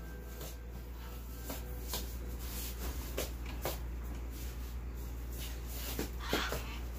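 Room tone with a steady low hum, broken by a few scattered soft knocks and rustles and a short rustle about six seconds in.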